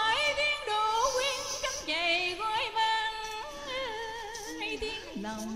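Background music: a slow Vietnamese song, its melody moving in long, wavering held notes.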